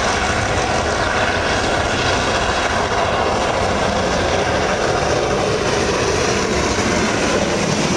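JNR Class D51 steam locomotive hauling a passenger train under heavy power, its exhaust and running gear making a loud, steady rushing noise as it approaches and passes.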